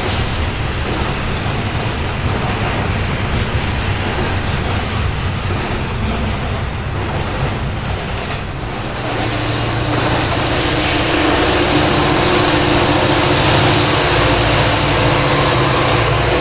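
Double-stack intermodal freight train rolling past, a steady rumble of wheels on rail. About ten seconds in, the drone of a Norfolk Southern diesel locomotive's engine comes in and grows louder toward the end.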